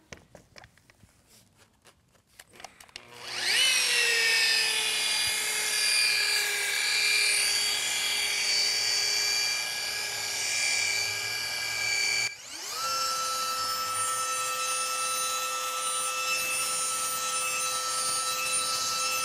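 Flex electric polisher with a foam pad buffing a headlight lens with cutting compound. After about three seconds of quiet the motor spins up with a rising whine and runs steadily. About twelve seconds in it cuts out for a moment, then spins back up and runs on with a steady whine.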